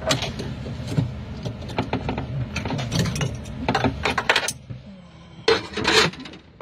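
Clicks, knocks and rubbing from a gloved hand working the water filter and its fittings behind a galley access panel, over a steady low hum. The loudest knocks come about five and a half to six seconds in.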